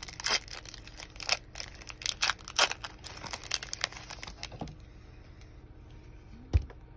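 Foil wrapper of a baseball card pack crinkling and tearing as it is pulled open in a rapid run of crackles, dying down after about four and a half seconds; a single soft thump near the end.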